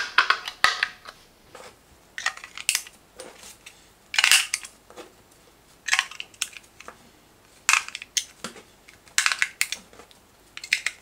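18650 lithium-ion cells being pressed one after another into a plastic power bank battery holder: a series of separate short clicks and clacks as each cell hits the holder and its spring contacts, about one every second.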